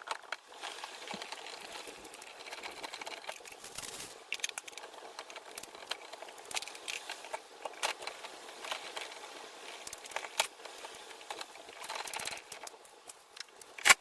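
Irregular rustling, crinkling and small clicks of hands handling things, with one sharp knock just before the end.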